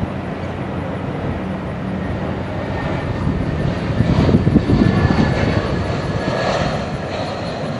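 Airbus A320-family airliner passing low overhead on final approach with its landing gear down: a steady jet engine rumble with a thin high whine, swelling about four seconds in.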